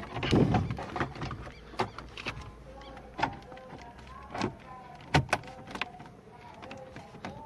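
Car radio head unit being pushed back into its dashboard slot: a low thump, then a series of sharp plastic clicks and knocks as it is seated.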